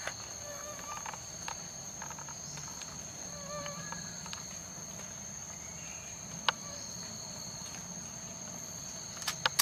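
Tropical forest insects keep up a steady, high-pitched drone at two pitches. A few sharp clicks stand out: one about two-thirds of the way through and a cluster near the end.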